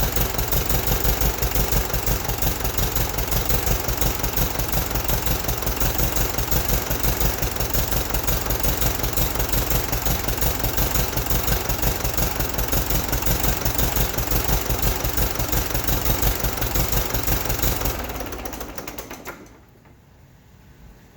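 1959 Case 800 tractor's diesel engine turning with an even, pulsing beat, its fuel system just bled. About eighteen seconds in it winds down and stops.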